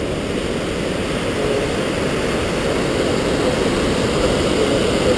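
Steady, loud roar of a waterfall, an even rush weighted toward the low end.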